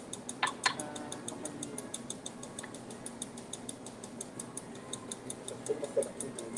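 Rapid, evenly spaced high-pitched ticking, several ticks a second, over a low steady hum, with two quick ringing clinks about half a second in.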